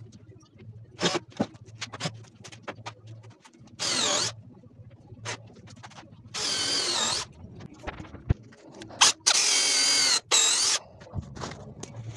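Electric drill running in about four short bursts as it bores and drives into the wooden bed frame, its whine wavering in pitch under load. Between the bursts come light clicks and knocks from handling the wood and tool.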